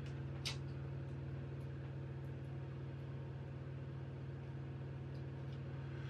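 Steady low background hum with a few level tones, and one light click about half a second in.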